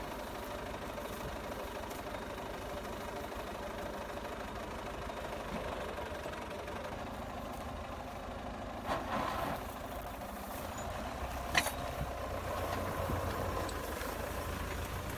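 Belarus 820 tractor's four-cylinder diesel engine running steadily, with a short noise about nine seconds in and a sharp click about three quarters of the way through; the low engine rumble grows stronger in the last few seconds as the disc plough goes into the soil.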